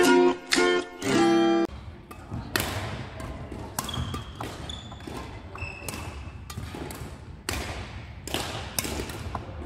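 A short plucked-string tune ends about a second and a half in. Then badminton rackets strike shuttlecocks in sharp, echoing hits about every half second to a second, over a low steady hum of the sports hall, with a few short high squeaks.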